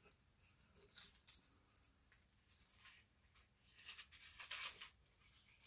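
Faint rustling and small clicks of a sheer organza drawstring gift bag being handled and opened, with a longer rustle about four seconds in.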